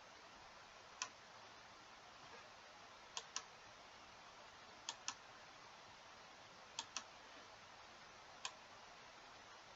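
Computer mouse clicking over faint hiss: a single click, three quick double clicks, then another single click.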